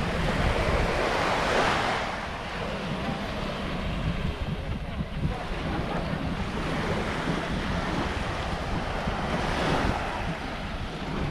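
Gulf surf washing up on a sandy beach, with wind buffeting the microphone; two waves wash in louder, about a second in and near the end.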